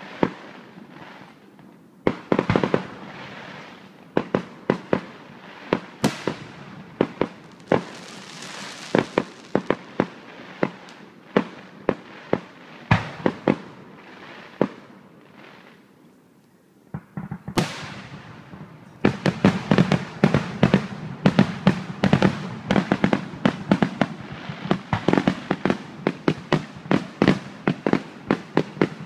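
Aerial fireworks shells bursting with sharp bangs, scattered at first and easing to a lull past the middle. Then, about two-thirds of the way in, a dense rapid barrage of bangs.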